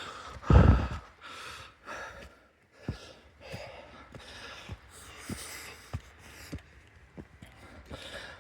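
A man breathing hard and panting while hiking uphill, with a loud heavy exhale about half a second in. Light, evenly spaced knocks of his footsteps come about every half second or so.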